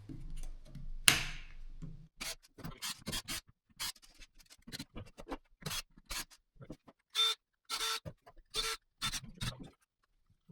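Cordless drill parts being handled on the bench: a run of short clicks, taps and scrapes, with a louder knock about a second in and a few brief squeaks near the end.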